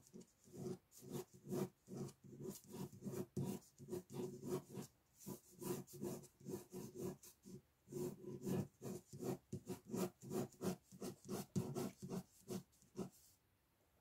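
Ballpoint pen scratching on paper in quick, repeated looping strokes, about three a second, pausing briefly about halfway through and again near the end.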